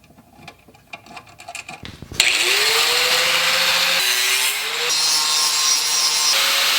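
An electric grinding tool starts about two seconds in with a rising motor whine, then grinds a steel flat-bar bracket to shape. The grinding is a loud, steady rasping hiss over the motor's hum, and the motor's pitch shifts a couple of times.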